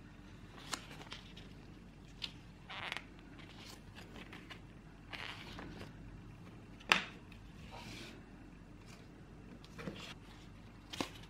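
Paper handling on a table: a booklet and cards are rustled, slid and set down, giving scattered soft swishes and clicks, with one sharp tap about seven seconds in.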